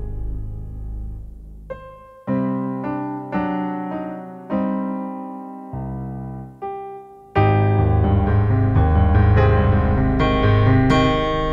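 Piano music: single notes and chords struck one at a time and left to fade, then a fuller, louder passage of chords from about seven seconds in.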